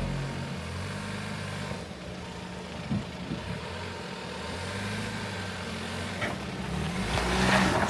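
Off-road vehicle's engine running at low revs while crawling a rough trail, with a few short knocks about three seconds in and a louder scraping rush near the end.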